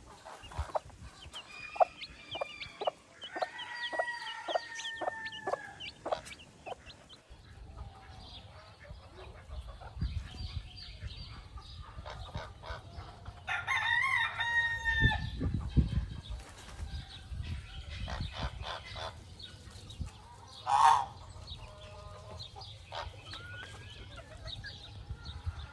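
Chickens clucking with short calls throughout, and a rooster crowing once about fourteen seconds in. A sharp, loud call follows about twenty-one seconds in.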